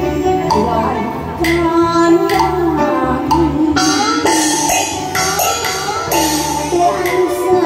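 A woman singing a Taiwanese opera (gezaixi) aria through a microphone, over amplified band accompaniment with a steady bass and regular percussion strokes.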